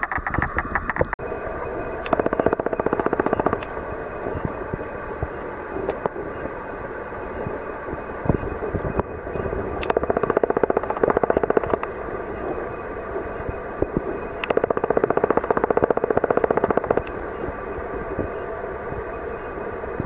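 Fast stream water rushing past an underwater camera, heard as a dense, rapid crackling rattle. It swells louder three times for a couple of seconds each.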